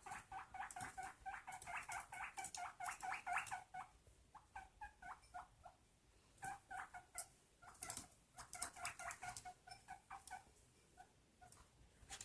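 Guinea pig calling in rapid runs of short squeaks, about five a second, in two long runs with a few scattered squeaks between them.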